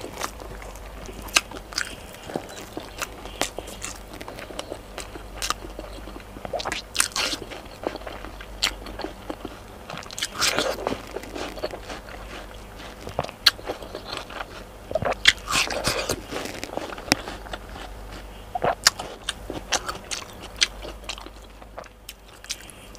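Close-up mouth sounds of eating chicken adobo and watermelon: chewing, wet smacks and bites, heard as many short sharp clicks with louder bursts every few seconds.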